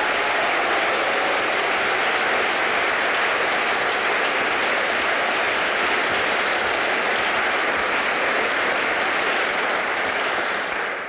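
Studio audience applauding steadily, the clapping dying away near the end.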